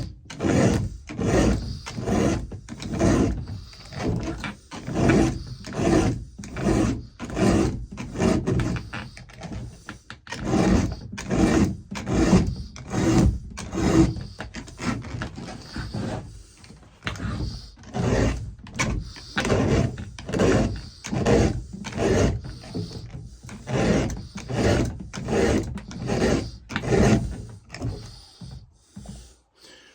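A file rasping across the cutting teeth of a chainsaw chain in steady repeated strokes, about two a second, with short pauses as it moves from tooth to tooth. This is the chain being sharpened by hand, five strokes to each tooth on one side.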